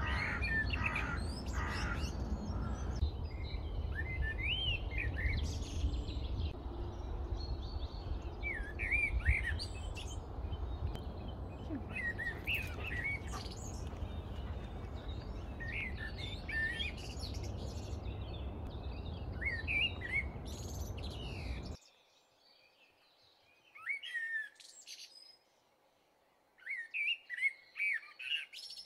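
Small birds chirping and trilling, over a steady low rumble that cuts off suddenly about 22 seconds in. After that only scattered bird calls remain, with a few louder calls near the end.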